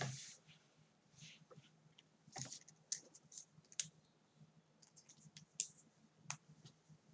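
Faint, irregular clicks and short scrapes of a sheet of paper and a pen being handled and shifted on a desk, over a faint steady low hum.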